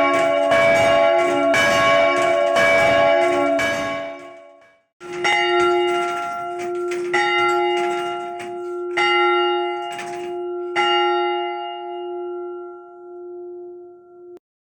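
Church bells swung by a paddle drive ringing. At first two bells of different pitch strike together in quick succession. After a short break a single bell strikes about once a second, the strikes growing weaker, and its last stroke hums on until it cuts off suddenly near the end.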